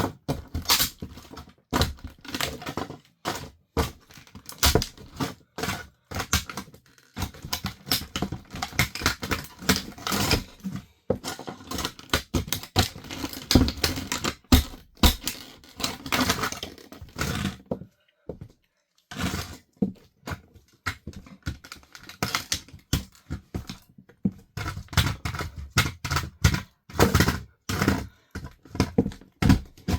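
Plastic parts of a toy RC car cracking and crunching under high heels: a dense, irregular run of sharp cracks and snaps, with a short lull about eighteen seconds in.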